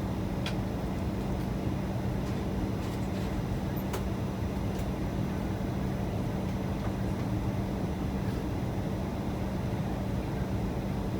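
Steady cabin noise of a jet airliner in flight: an even roar with a constant low hum, and a few faint clicks.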